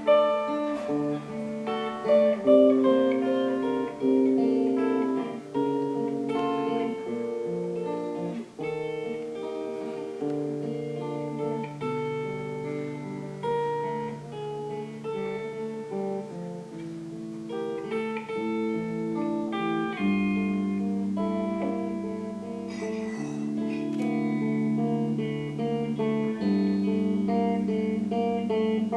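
Live band music with guitar playing an instrumental passage, notes and chords changing every second or so, no singing.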